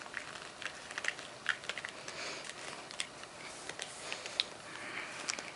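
Scattered small clicks and taps of hard plastic doll sandals being worked onto a doll's feet, with soft rustling of hands handling the doll.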